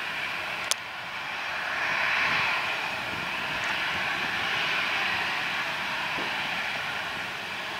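Boeing 737-800's CFM56-7B turbofan engines at taxi power, a steady whining rush that swells a little about two seconds in. A single sharp click sounds about a second in.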